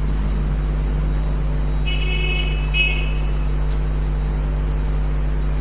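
Steady low electrical hum from the lecture-hall sound system. About two seconds in, two short high-pitched toots sound one after the other.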